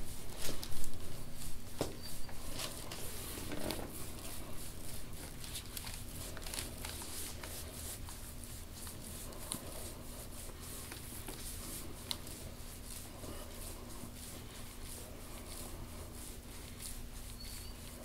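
Elbow and forearm massage grinding slowly into the oiled skin of a man's upper back: soft rubbing with scattered small clicks and skin-friction squeaks, busier in the first few seconds, over a steady low room hum.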